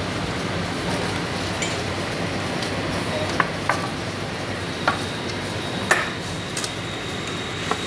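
Kitchen clatter: several sharp knocks and clinks of metal pizza pans and utensils on a stainless-steel counter, most of them in the second half, over a steady background hum of the kitchen.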